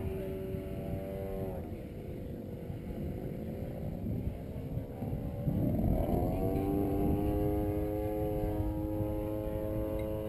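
RC model airplane's engine heard up close from an onboard camera: it drops in pitch about a second and a half in as the throttle comes back, then climbs again around six seconds in and holds a steady high drone. Wind rumble on the microphone runs underneath.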